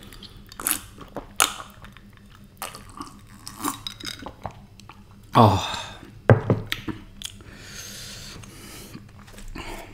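Close-miked gulping and swallowing of cold mango juice from a glass, a run of sips and swallows with wet mouth clicks. A little past the middle come two short louder sounds falling in pitch, then a soft breathy exhale.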